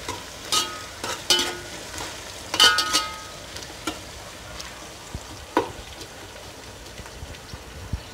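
Sliced onions frying in oil in a metal pot with a steady sizzle, while a spoon stirs them. It scrapes and clinks against the pot several times in the first three seconds and twice more later.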